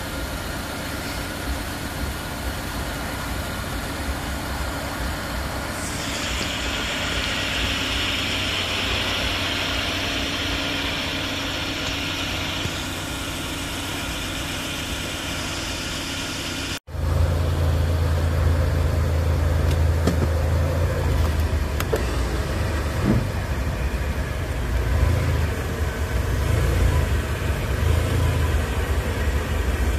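Subaru Legacy's boxer engine idling steadily. After a cut about halfway through it is louder and deeper, heard up close beside the front wheel.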